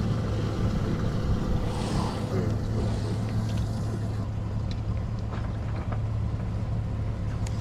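Boat motor running steadily with an even low hum, and a few light clicks near the end.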